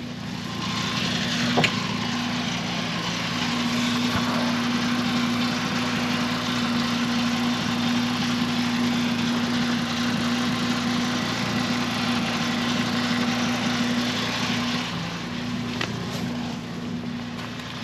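A car engine idling steadily with an even hum, easing slightly in level near the end.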